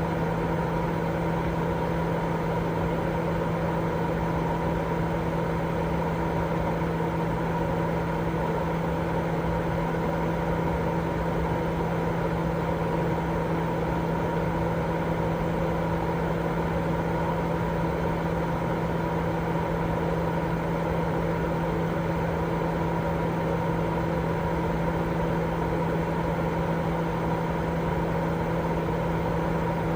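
Continuous white noise for baby sleep: an even, unchanging hiss, fuller in the low and middle range than in the treble, with a steady low hum and a fainter higher tone running through it.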